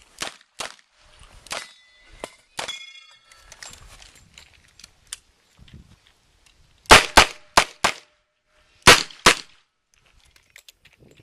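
Revolver shots: four quick shots about two-thirds of the way in, then two more about a second later. Before them, fainter clicks and knocks and a brief metallic ring.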